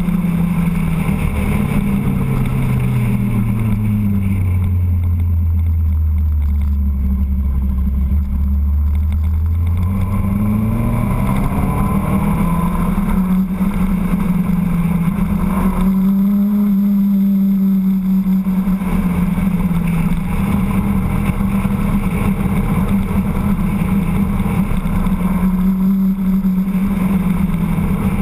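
Motorcycle engine running on the move, with a steady rush of wind noise. Its revs fall away over several seconds as it slows, climb back about ten to twelve seconds in as it accelerates, then hold steady.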